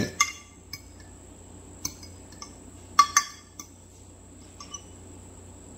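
Metal forks clinking against glass dishes as pickle chips are turned in flour, egg wash and panko breading: about eight scattered sharp clinks, the loudest a quick pair about three seconds in.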